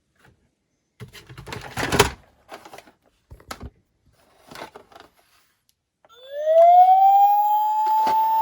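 A few clicks and rattles, then about six seconds in a toy police car or ambulance minicar's electronic siren starts: a single loud wail that rises in pitch and then holds.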